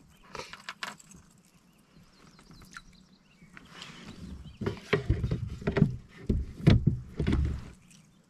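Hand-paddling an inflatable kayak: water splashing and low thumps against the boat, loudest from about five to seven and a half seconds in, after a few light clicks near the start.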